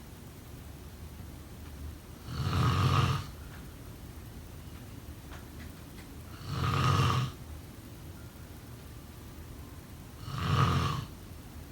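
A sleeping person snoring: three snores, each lasting just under a second, about four seconds apart.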